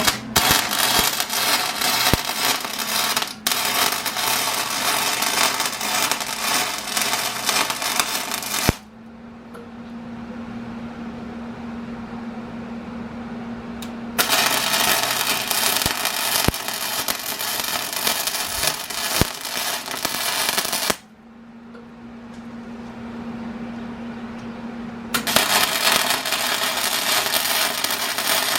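MIG welding arc from an Eastwood 135 MIG welder crackling and sputtering in three runs of several seconds each as weld beads are laid. In the pauses between runs a steady low hum is heard.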